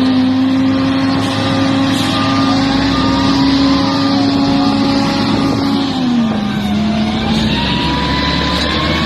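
Heavy equipment engine running steadily under load, with a strong even drone. Its pitch drops a step about six seconds in, and fainter higher tones waver and glide above it.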